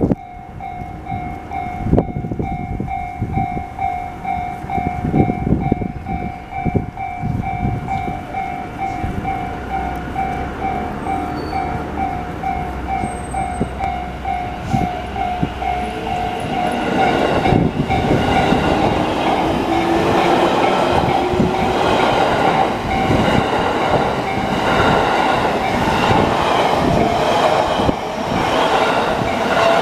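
Japanese railway level-crossing alarm sounding the JR standard electronic bell, a pulsing tone repeating evenly. About 17 seconds in a train reaches the crossing and passes, its rumble and wheel clatter growing loud over the bell, with a slowly rising whine.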